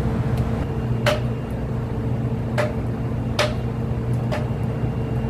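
Steady low drone of a ship's onboard machinery, with four short, sharp knocks over it as fish are handled on the steel deck.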